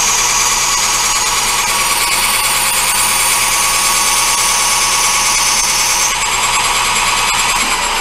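Metal lathe running while turning a black acetal (Delrin) bar; a high whine from the cut stops about six seconds in. Near the end the motor's pitch falls as the lathe spins down.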